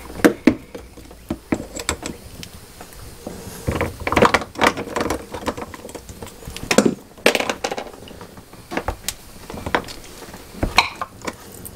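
Scattered clicks, taps and rustles of hands and diagonal cutters working a pipe clamp and the plastic water-line fitting off a Dometic 310 RV toilet's water valve, with a few sharper knocks around the middle.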